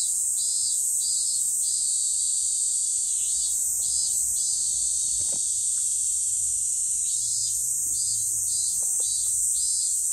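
Cicadas singing in summer trees: a steady high-pitched drone, with a second, lower cicada call pulsing about twice a second in spells near the start, around the middle and toward the end.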